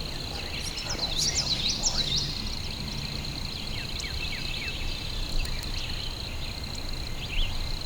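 Swamp-edge woods at morning: songbirds chirping quickly, most densely about a second in, over a steady high-pitched drone of insects or frogs and a low rumble of background noise.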